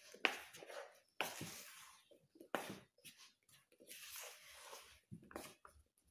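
A spatula stirring chopped apple and banana into dry flour in a bowl: irregular scrapes and rustles, some with a sharp start, about one every second.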